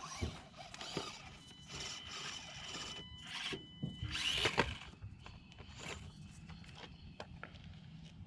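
Axial SCX24 mini RC crawler's small electric motor and gears whining in on-and-off spurts as it is driven, with light knocks and scrapes of the truck against the course.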